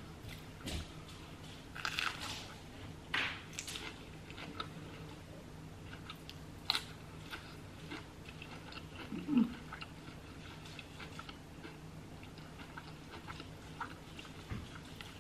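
A person biting into and chewing a cheeseburger with lettuce, pickle and tomato on a bun, with wet crunching and chewing. Several crisp crunches come in the first few seconds and another about seven seconds in. A short low sound from the throat comes about nine seconds in and is the loudest moment.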